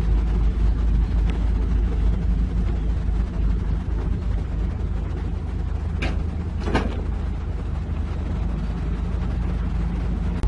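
A heavy diesel engine running steadily with a low rumble. A little past halfway there are two short, sharp noises in quick succession.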